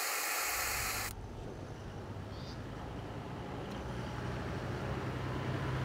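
A loud hiss for about a second, then a vehicle driving: engine hum and road noise, the engine note slowly growing louder.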